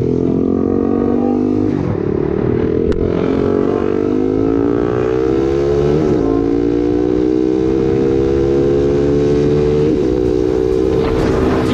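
Honda CBR300R's single-cylinder engine accelerating through the gears: the pitch climbs in each gear and drops back at upshifts about two, six and ten seconds in, with wind noise on the camera microphone.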